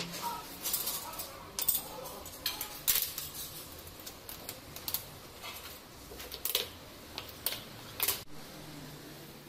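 Irregular sharp clicks and knocks as orange plastic tile-levelling clips and hand tools are handled against glossy ceramic floor tiles.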